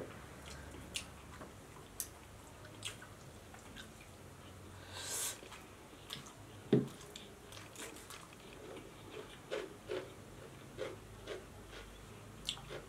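Close-up eating sounds: scattered wet mouth clicks and chewing, with fingers squishing rice on steel plates. There is a single louder thump about halfway through.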